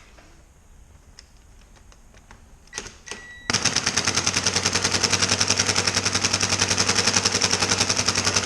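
Impact gun with an Allen-head socket hammering on a brake-rotor bolt. After a couple of brief blips of the trigger, it runs loud and steady in rapid hammering from about three and a half seconds in.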